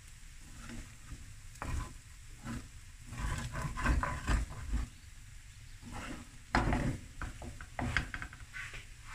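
A wooden spoon stirring and tossing fried rice in a hot frying pan: irregular scrapes and knocks against the pan come in bunches, with a faint sizzle underneath.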